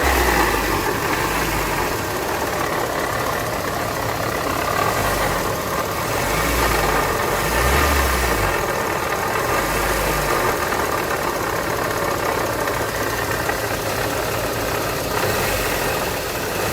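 Car engine idling steadily with a mechanical rubbing noise that the mechanics take for the water pump's impeller blades scraping inside the pump, its shaft having too much play from worn bearings. One of them thinks it sounds more like the alternator.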